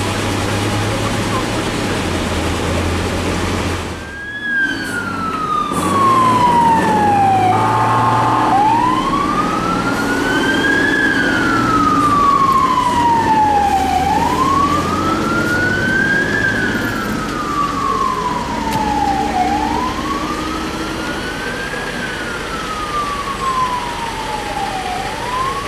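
Fire engine siren sounding a slow wail, rising and falling about every five and a half seconds, with a short horn blast about eight seconds in. A heavy vehicle engine rumbles before the siren starts, about four seconds in.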